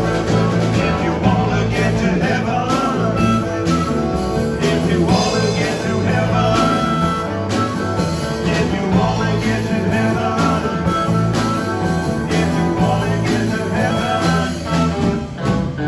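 A live band playing: electric guitar, electric bass and drum kit, with a harmonica cupped to a vocal microphone over the top.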